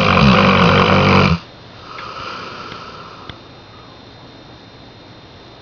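Saint Bernard snoring: a loud, pitched snore that cuts off about a second in, followed by a softer, breathy breath and then quiet breathing.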